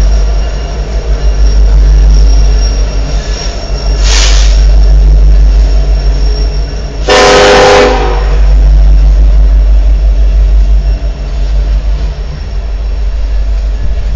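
Coal train pulled by two BNSF EMD SD70ACe diesel locomotives passing, a heavy steady rumble. A brief noisy burst comes about four seconds in, then one loud horn blast of about a second about seven seconds in.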